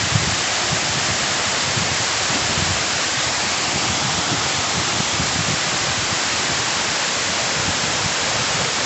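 Waterfall rushing steadily: a loud, even noise of falling water with an uneven low rumble beneath it.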